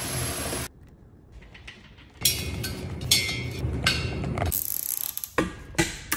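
A power saw cutting through PVC pipe, stopping under a second in. After a short lull, plastic zip ties are pulled tight around the pipe with a rapid ratcheting, and there are a few sharp clicks near the end.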